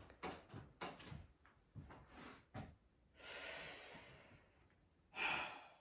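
A person's breathing: a long exhale about three seconds in, and a short, sharp breath near the end, after a few faint small knocks and rustles.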